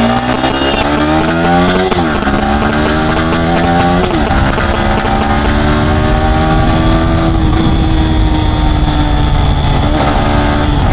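Motorcycle engine accelerating hard through the gears: the revs climb, drop sharply at an upshift about two seconds in and again about four seconds in, then settle into a steady cruise.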